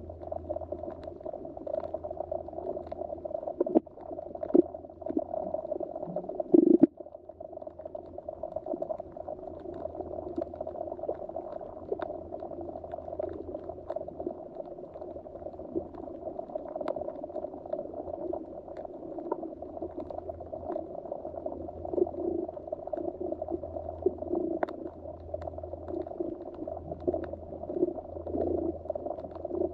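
Muffled underwater ambience: a steady low gurgling rumble with scattered faint clicks, and a few louder thumps between about four and seven seconds in.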